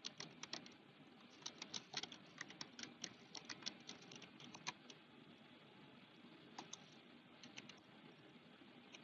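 Faint typing on a computer keyboard: a quick run of keystrokes for about five seconds, then a few scattered key presses.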